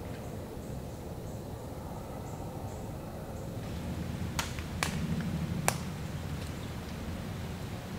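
Quiet hardwood-forest ambience with three sharp ticks or snaps about halfway through and a faint low drone around the same time.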